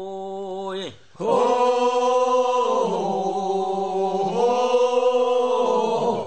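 Sangyeo-sori, the Korean bier-bearers' funeral song, sung as a slow, drawn-out chant. A held note fades out in the first second; after a short breath a new long line follows on sustained notes that dip and rise, and it stops just before the end.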